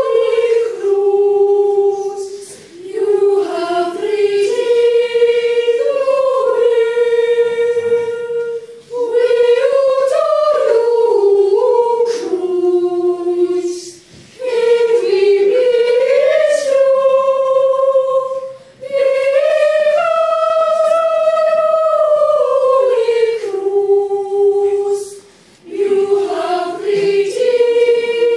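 Boys' choir singing a cappella: a slow, sustained treble melody in long phrases, with short breaks for breath every few seconds.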